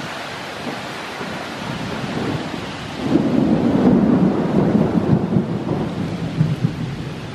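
Thunder rumbling: a low rumble swells about three seconds in and slowly fades, over a steady hiss of rain and wind.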